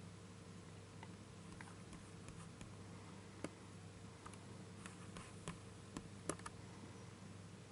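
About a dozen light, irregular computer mouse clicks over a faint, low, steady hum, the loudest click about six seconds in.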